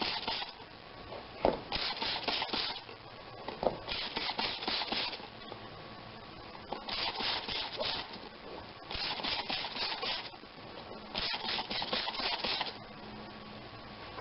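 Repeated rubbing or scrubbing strokes, each about a second long with short gaps between them, and a few light knocks in between.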